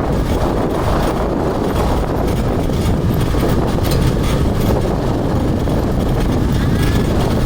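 Steady rumble of a moving vehicle: road and wind noise, loud and even throughout.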